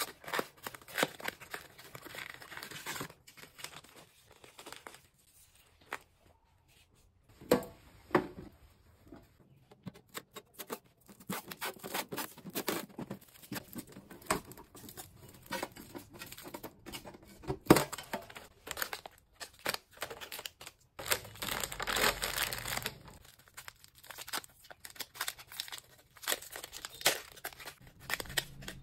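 Hands unpacking snack packaging: cardboard boxes and plastic wrappers crinkling and rustling, with scattered sharp taps and clicks as a cookie tin is handled and opened. Past the middle comes a longer, denser tearing rustle of wrapping.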